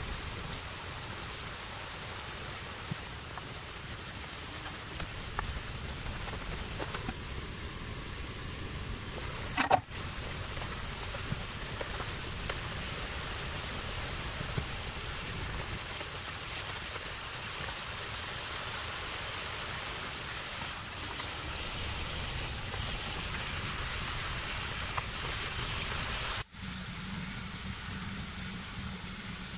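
Shredded radish sizzling in a hot wok, a steady hiss, while it is stirred with a wooden spatula, with occasional light clicks. The hiss breaks off twice at edits, and near the end it gives way to a steadier hiss with a low hum.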